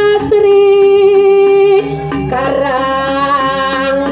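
Music: a singing voice holding long notes over a low, evenly pulsing accompaniment, moving to a new, slightly wavering note about two seconds in.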